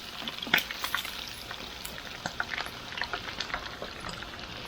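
Spanish mackerel fillets frying in hot oil, a steady sizzle dotted with many small crackling pops.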